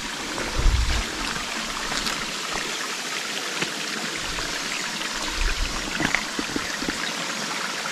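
Small forest waterfall with only a little water falling in the dry season: a thin, steady trickle and splash of falling water. A few low thumps come about a second in and again around five and a half seconds.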